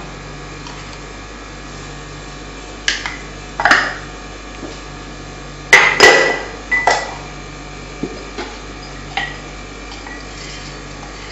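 Scattered clinks and knocks of kitchenware against a ceramic bowl while spices are added to a marinade, about eight in all. A few have a short ringing tone, and the loudest come about halfway through. A low steady hum runs underneath.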